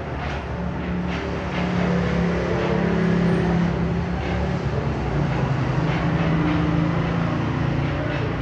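A steady low mechanical drone over a bed of noise, its pitch dropping slightly about five seconds in, with a few faint clicks.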